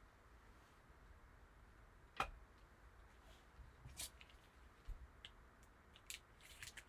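Near silence, with a few faint clicks and taps from trading cards being handled, the sharpest about two seconds in and a small cluster near the end.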